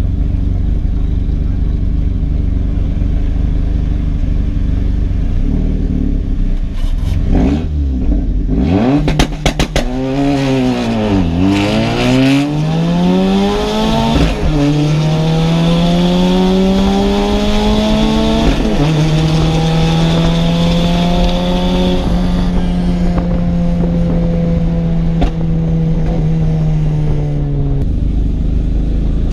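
Turbocharged 1.8-litre 20-valve four-cylinder of a VW Jetta Mk4 with a GT28 turbo, pulling through the gears under hard acceleration. After a steady low rumble the revs climb, and each upshift knocks them back, three in close succession. It then holds a steady speed before easing off near the end.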